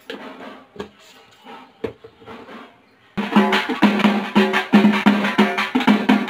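Temple procession drums beaten with sticks in a loud, quick, even beat, starting abruptly about three seconds in. Before that there are only faint sounds and a couple of sharp knocks.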